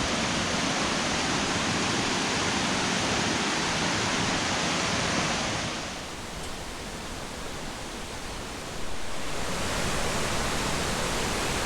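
Steady rushing of a waterfall, a full even hiss that drops for a few seconds midway and then comes back.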